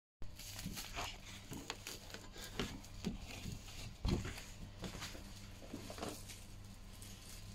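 Laminating machine running with a steady low hum, with scattered light clicks and knocks on top; the loudest knock comes about four seconds in.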